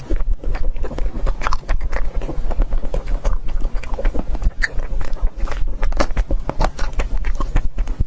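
Close-miked eating ASMR: a person biting and chewing food, with many quick, irregular crunching clicks over a steady low hum.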